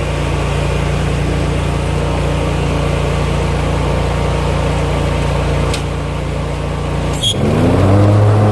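Scag Cheetah zero-turn mower engine running steadily. About seven seconds in there is a short click, then the engine note rises and holds at a higher pitch as it speeds up.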